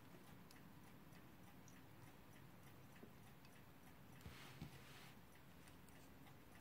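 Near silence, with faint small clicks and a brief light scrape about four seconds in as brass gear wheels are handled and seated on a clock movement's metal plate.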